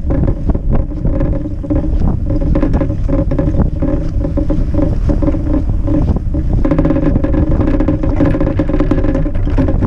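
Cargo bike riding along a snow-covered street: a loud, steady hum with frequent short knocks and rattles as it goes over the snow.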